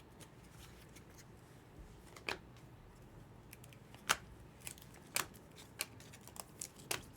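Panini Prizm basketball cards being handled and sorted: soft sliding with a few sharp clicks as cards are flicked and set down.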